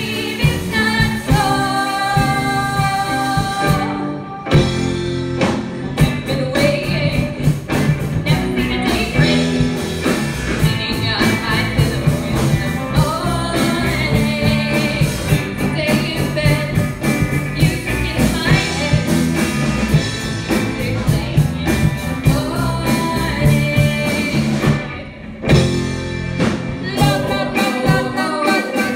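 Live rock band playing, with electric guitars, bass, keyboard and drums under lead vocals, heard from the audience. The band thins out briefly about four seconds in and again near the end.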